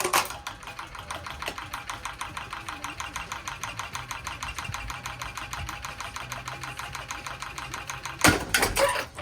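A damaged ceiling fan running and clattering: a fast, even ticking of about ten strikes a second over a steady hum. About eight seconds in, a burst of loud, irregular bangs cuts in.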